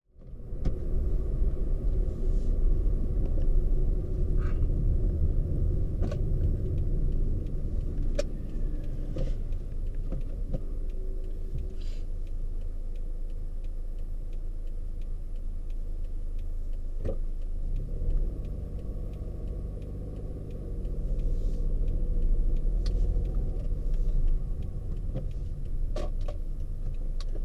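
Toyota iQ driving slowly in traffic, heard from inside the cabin: a steady low engine and road rumble with scattered light clicks and knocks. The engine note comes up and gets louder about two-thirds of the way through.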